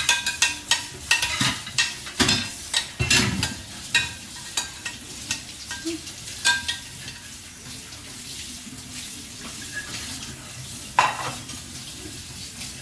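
A spoon stirring food in a bowl, with quick scraping clicks against the bowl. The clicks fade after about six seconds, and a single louder knock comes near the end.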